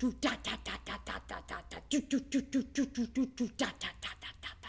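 A woman imitating a helicopter with her voice: a fast run of short repeated syllables, about six a second, standing for the rotor blades. The runs switch between voiced and whispered every second or two.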